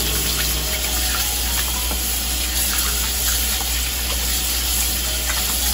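Kitchen tap running steadily, its stream splashing over raw pork ears and tongue as they are rubbed clean by hand in a plastic bowl.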